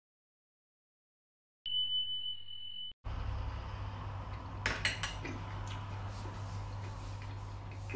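Silence, then a steady high electronic beep lasting just over a second from a subscribe-button sound effect. After it comes a low steady hum, with a few light clinks of a metal fork about five seconds in.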